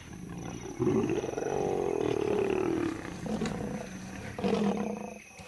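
Lions snarling and growling in a fight: one long rasping snarl starting about a second in and lasting around two seconds, then a shorter one near the end.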